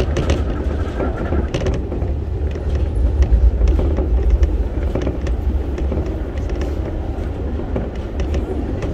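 Keio 1000 series electric multiple unit running at speed, heard from inside, behind the cab: a steady low rumble with frequent sharp clicks from the wheels on the track.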